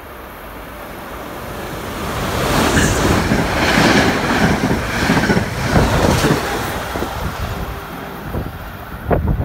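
Electric-hauled passenger train with double-deck coaches running through a station at speed: a rising rush of wheels on rail that is loudest as the coaches pass, with rapid wheel clacks, then fades as the train draws away.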